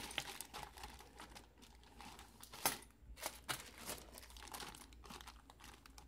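Clear plastic bag of brass key blanks crinkling as it is handled and opened, with a few light clicks about midway.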